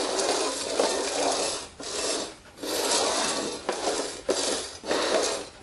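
Small upturned terracotta flower pots slid and shuffled by hand across a wooden floor: rough scraping in several stretches with short breaks between.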